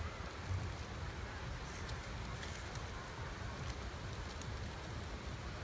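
Small fire of dry leaves and twigs crackling, with a few scattered pops over a steady low noise.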